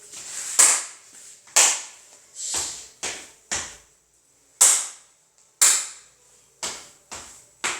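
Body percussion: about ten sharp hand claps and slaps on the body, a few of them with a duller, deeper thud like a thigh slap or foot stamp, in a loose rhythm of roughly one a second that quickens near the end.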